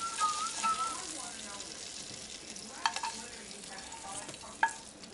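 Shrimp frying in butter and olive oil in a small skillet: a steady sizzle with crackling, and two sharp clicks of a slotted spatula against the pan, near the middle and near the end.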